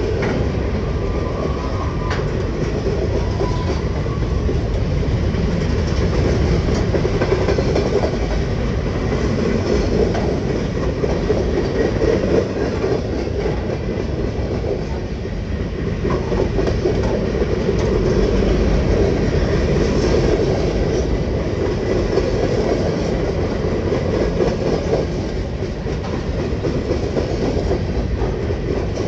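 Freight cars of a long train rolling past close by: a steady, loud rumble of steel wheels running on the rails.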